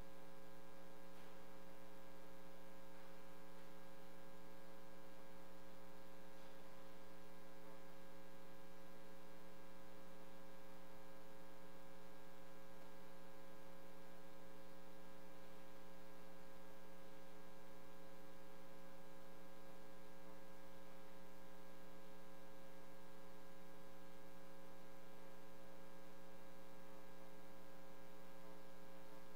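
Steady electrical mains hum: a constant low buzz with several overtones over faint hiss.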